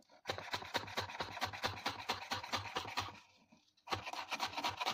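A kitchen knife rapidly chopping fresh coriander on a wooden cutting board, about seven quick strokes a second. The chopping stops for about a second a little past the three-second mark, then starts again.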